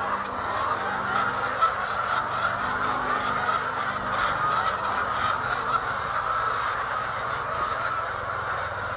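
Many laying hens clucking and calling at once: a steady, dense chatter of overlapping calls, with a faint low hum underneath.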